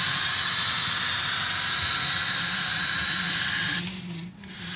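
Model diesel locomotive running with its onboard engine sound, a steady drone and hiss through a small speaker, with the train's running noise. The sound dips out briefly near the end.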